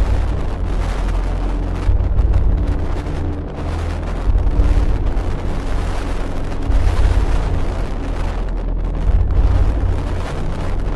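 Strong wind buffeting the microphone in surges about every two seconds over the steady rush of heavy storm surf.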